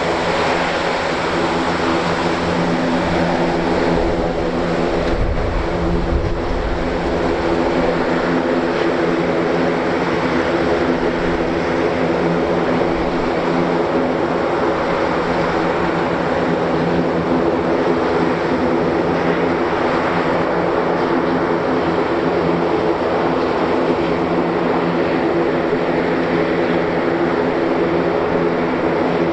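Airbus A400M's four turboprop engines running steadily, a propeller drone made of several steady tones over a broad rush. A low rumble swells briefly about five seconds in.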